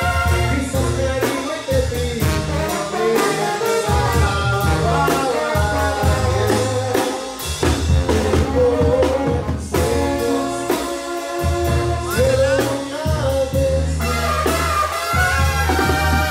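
Brass-band music in Mexican banda style, with trumpets and trombones over a strong pulsing bass line and a singing voice.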